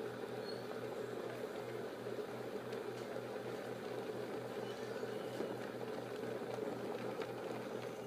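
Steady white-noise track: an even rushing noise, strongest in the middle range, over a low hum that pulses evenly several times a second, with a few faint ticks.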